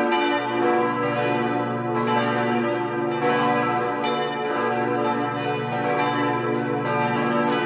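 Four church bells cast in 1949 by Petit & Edelbrock ringing together as a partial peal on the strike notes B, D, F-sharp and A, their strikes overlapping continuously with a long ringing hum. The fifth bell, on E, is silent because it has no clapper.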